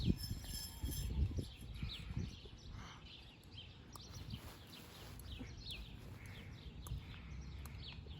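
Small birds chirping in the background, many short falling chirps, over a low rustling rumble that is loudest in about the first second and then fades.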